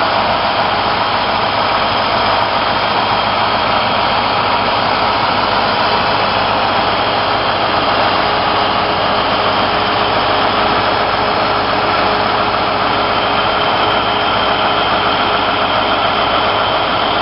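1957 Ford Thunderbird's V8 engine idling steadily and evenly.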